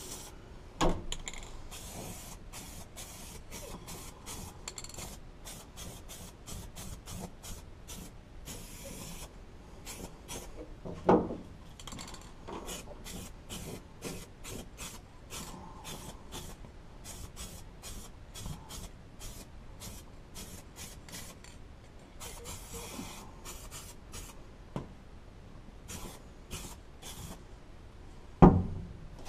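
Aerosol spray can of SEM paint hissing in many short bursts, with a few longer sprays, as a coat goes onto bare sheet metal. A couple of louder knocks, about 11 seconds in and near the end.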